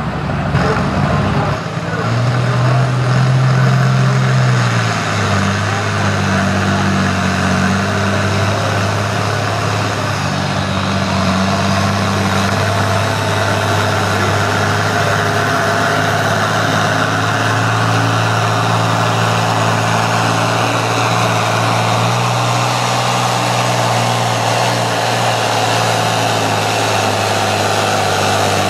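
International Harvester farm tractor engine running hard under load, pulling a weight-transfer sled. It is a steady drone, pitched a little higher for about three seconds early on and then settling lower and holding.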